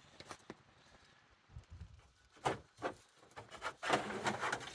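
A run of light clicks and knocks as small objects are handled, starting about two and a half seconds in after a quiet stretch with a few faint ticks.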